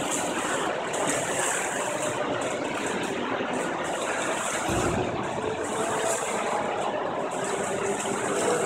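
Steady, even noise of an indoor swimming pool hall, with a brief low thump about halfway through.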